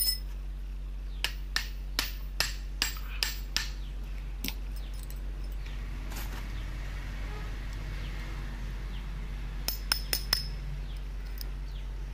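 Sharp metal clinks and knocks from a disassembled motorcycle front fork leg being worked by hand: a run of about eight knocks, roughly three a second, in the first few seconds, then a quick cluster of clicks near the end.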